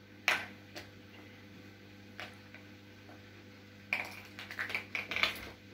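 Kittens playing on a hard wooden floor: scattered taps and clicks of paws, claws and knocked-about toys. There is one sharp tap just after the start, a few light ones, then a quick run of clicks about four seconds in.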